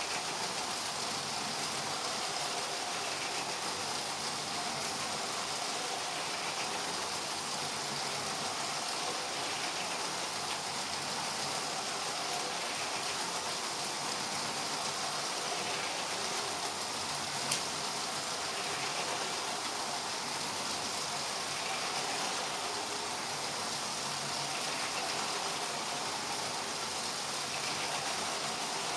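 LEGO trains running on plastic track: a steady whirring hiss of small electric motors and wheels that swells faintly every few seconds, with one sharp click about halfway through.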